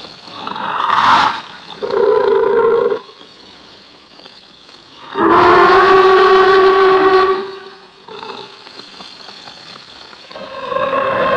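Alligator roar sound effects: four drawn-out, pitched roaring calls, the longest about two seconds in the middle, with quieter noise between them.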